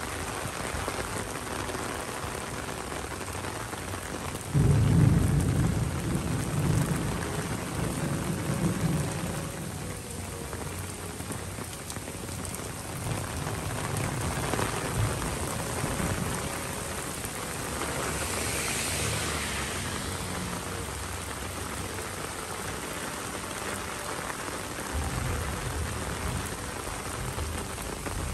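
Heavy rain falling steadily and splashing on pavement, road and parked cars. A loud low rumble starts suddenly about five seconds in and fades over several seconds, with a weaker rumble near the end.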